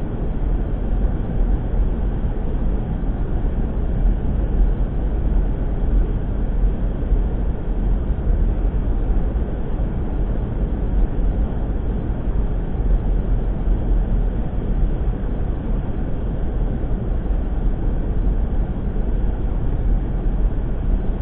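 Vehicle driving along a gravel lane, heard from inside the cab: a steady low rumble of engine and tyres that holds without change.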